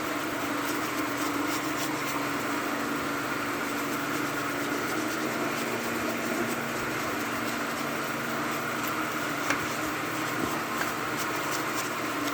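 Steady mechanical hum with a hiss from a running machine, with a single sharp click about nine and a half seconds in.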